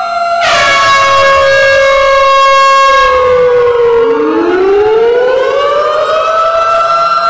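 Tornado warning siren wailing, several siren tones overlapping. A new tone cuts in about half a second in, the pitch slides slowly down for a few seconds, and then it winds back up and holds.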